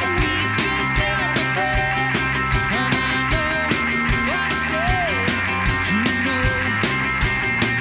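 Live rock band playing with a steady drum beat, electric bass and electric guitar, and a man singing the melody over it.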